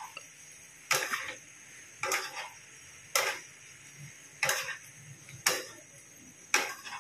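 Spatula striking and scraping a non-stick wok while tossing a bean-sprout, tofu and chicken stir-fry: six short knocks, about one a second.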